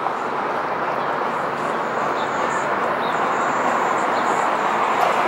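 A steady rushing noise that slowly grows a little louder.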